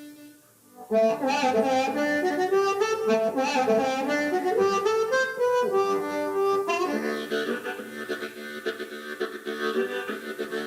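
A blues band playing. A held note fades to a brief lull, then about a second in a fast run of lead notes starts; from about seven seconds it gives way to fuller held chords.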